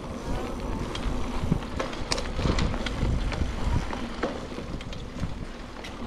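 Mountain bike rolling along a dry dirt trail: steady rumble of tyres and wind, with scattered clicks and rattles from the bike.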